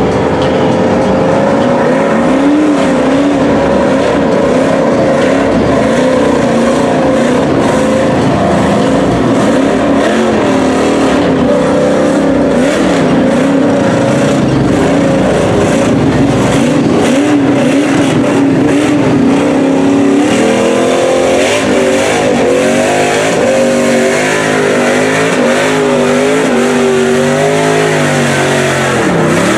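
Lifted Chevy pickup mud truck's engine running under load and revving as it churns through mud and water on oversized tyres, with water and mud splashing. The revs swing up and down more in the last third.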